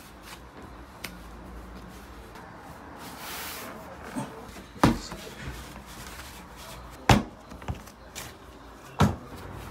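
Three sharp knocks on a wooden worktable, about two seconds apart, with lighter taps between them, as dough pieces are handled and set down.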